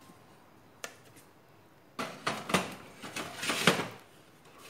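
An optical drive being handled and pushed into the metal drive bay of a computer case: a single click about a second in, then about two seconds of metal clattering, scraping and knocks.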